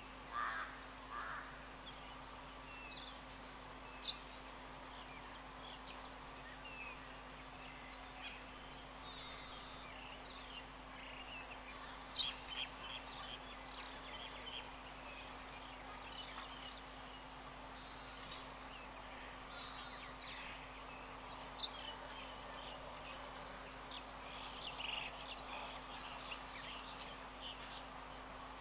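Bushveld birds calling and chirping: many short, scattered chirps, with a few sharper calls standing out, over a faint steady hum.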